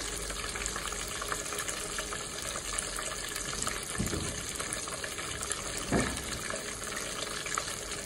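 Oil sizzling and crackling steadily around a whole dove frying in a pot. Two brief low thuds come about four and six seconds in.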